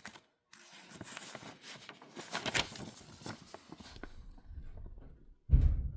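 Handling noise: a run of rustles and light clicks as things are picked up and moved about, then one dull thud near the end.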